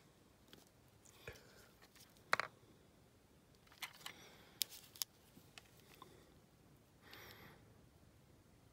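Faint, scattered clicks and light taps of small objects being handled on a workbench, the sharpest a little over two seconds in and a quick cluster around the middle, with a soft brushing rustle near the end.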